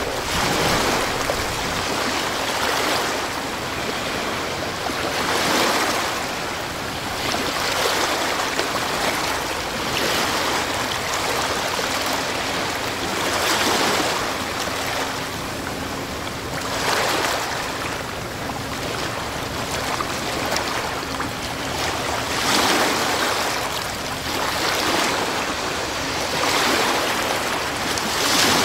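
Sea waves washing in: a steady rushing with a swell every two to three seconds.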